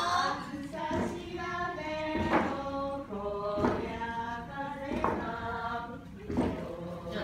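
A group of women singing a traditional yumomi work song in unison, with long held notes, while long wooden boards churn the hot-spring water. A regular stroke from the boards comes about every second and a half.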